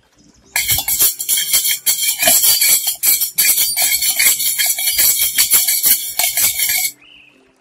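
Jingle-bell and tambourine music, a dense bright jingling that starts about half a second in and cuts off suddenly near the end.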